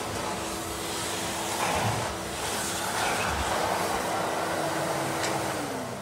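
A 1985 cylinder vacuum cleaner running, its motor humming steadily under the rushing air of the floor tool being pushed over carpet. The suction noise swells and eases with the strokes. Near the end the hum falls in pitch as the motor runs down.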